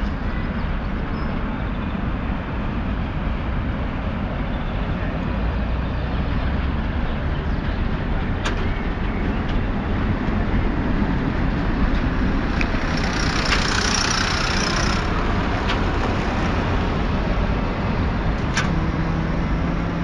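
Articulated tram running past close by on its rails, a steady rumbling noise that swells as it draws level. Partway through, a louder high hiss-like stretch from the tram sounds for a couple of seconds, and a few sharp clicks are heard.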